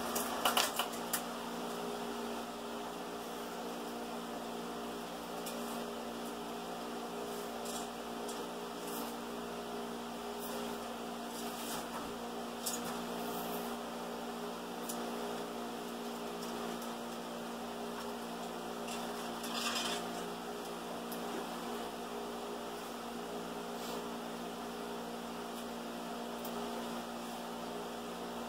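Film projector running with a steady hum, a quick cluster of clicks at the start and a few light clicks and a short rustle later on.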